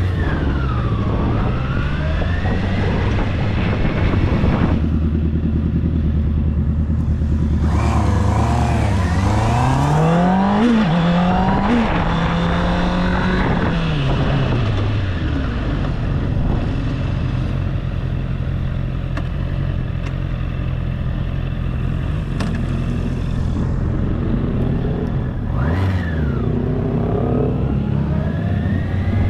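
Honda CB650R's inline-four engine accelerating hard through the gears about eight seconds in, with wind rush at speed. The revs then fall away as the bike slows, and it runs steadily at low revs with a brief rev blip near the end.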